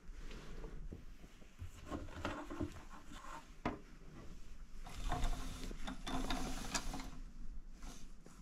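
Bedding and clothing rustling with scattered knocks as someone climbs off a bed. About halfway through, a heavy fabric curtain hung on plastic rings is drawn along a metal rod, and the rings scrape for a couple of seconds.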